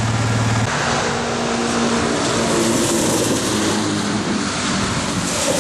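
A steady engine idle cuts off abruptly less than a second in, replaced by the rushing noise of a motor vehicle going by on wet pavement, swelling and easing twice.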